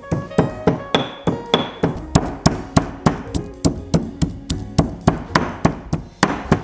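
Stone pestle pounding garlic cloves in a stone mortar: sharp, even knocks about three a second, over soft background music.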